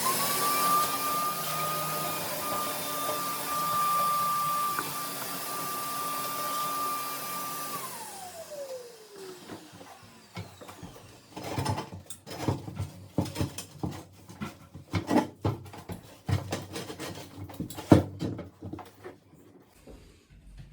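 Wet-and-dry vacuum sucking the water out of a toilet bowl: its motor starts abruptly with a steady high whine, runs for about eight seconds, then winds down with falling pitch once switched off. Irregular knocks and clunks follow.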